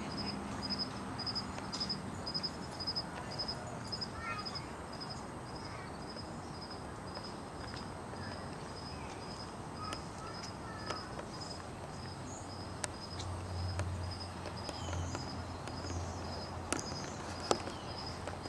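An insect chirping in an even, unbroken rhythm, about two and a half high chirps a second, with faint bird calls now and then. There are a few sharp clicks near the end.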